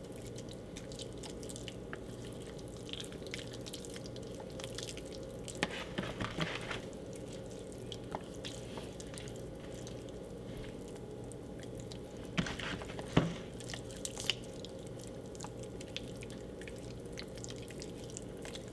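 Hands rubbing seasoning into raw steaks: soft, intermittent wet squishing and small clicks, busiest about six seconds in and again around twelve to fourteen seconds, with one sharper tap. A steady low hum runs underneath.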